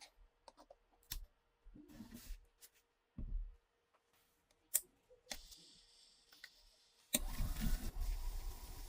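Scattered sharp clicks and a few dull knocks of small metal parts of a Nagant M1895 revolver being handled. About seven seconds in, a louder continuous rough noise starts and keeps going.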